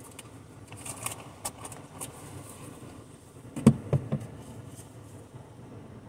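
Low steady hum inside a car's cabin, with a few faint ticks early on and a quick run of three soft thumps about three and a half seconds in.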